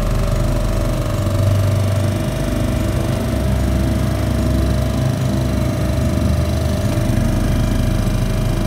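Small outboard motor running steadily at constant throttle, a buzzy drone at one even pitch.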